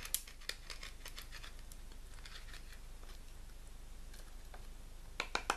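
Mora Bushcraft Force knife blade shaving and carving a wooden branch in short strokes, each a brief dry scrape. A quick run of sharper clicks comes near the end.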